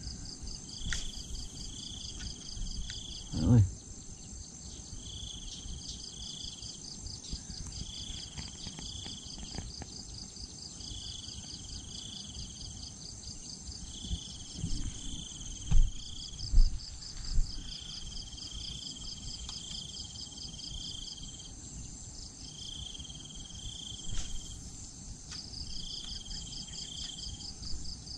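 Insects chirping in repeated short bursts over a fast, steady high trill, with a low rumble beneath. A loud low thump comes about three seconds in, and two sharp knocks around the middle.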